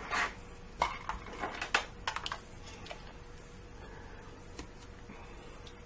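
A handful of light clicks and taps as a small opened AC adapter, with its transformer and cord, is handled and set down on a workbench, then near quiet with a faint steady hum.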